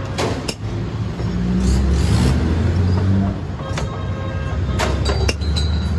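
A motor vehicle engine running with a low, steady rumble, with a few sharp clicks and knocks scattered through it.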